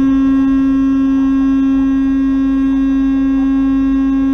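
Semi truck's horn held down in one long, steady blast at a single pitch, sounded as a warning at a car merging into the truck's lane.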